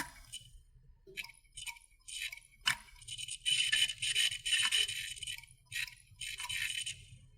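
Hard disk drive clicking: irregular bursts of high, rattly chattering from the heads seeking, with a sharp single click at the start and another a little before three seconds in.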